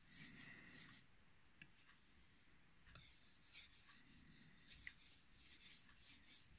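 Knife blade stroked back and forth on a wet Chinese natural whetstone covered in slurry: faint, quick scraping strokes about four or five a second, stopping for about two seconds after the first second, then carrying on.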